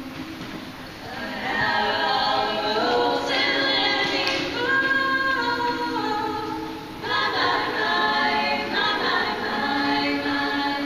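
A choir of young singers singing in harmony, holding long sustained chords that change together, swelling louder about a second and a half in.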